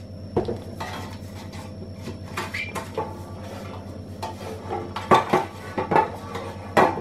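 Metal non-stick loaf tin clattering and scraping on the countertop as it is tilted and oil is rubbed around inside it by hand, with a few sharper knocks in the second half.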